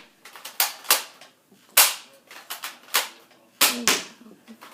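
Nerf blaster firing foam darts: about six short, sharp pops at uneven intervals.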